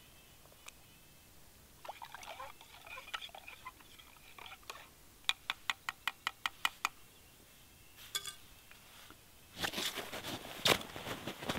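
A long-handled spoon stirring and scraping inside a camp mug, then about ten quick taps of the spoon, evenly spaced. Louder rustling comes near the end.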